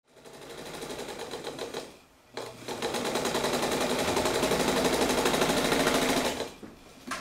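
Vintage electric sewing machine stitching fabric with a fast, even clatter, in two runs: a short one, a brief stop about two seconds in, then a longer, louder run that winds down and stops near the end.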